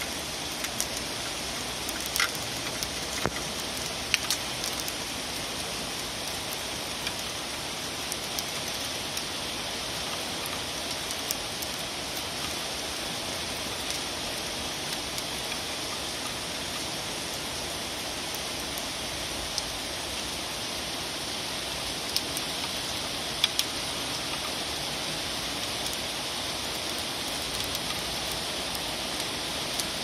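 Steady rain falling: an even hiss with scattered sharper drops ticking on nearby surfaces.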